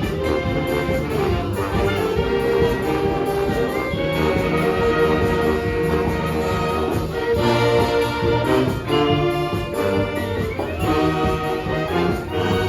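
Filipino brass band playing a Manila sound pop medley, with trumpets and trombones carrying sustained melody notes over a steady bass line.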